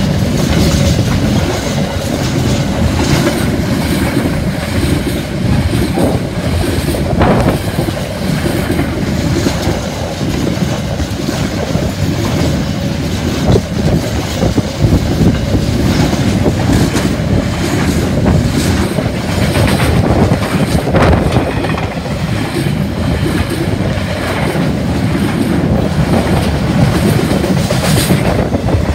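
Freight train of container and flat wagons rolling past close by: a steady, loud rumble of steel wheels on rail, with occasional sharp clanks.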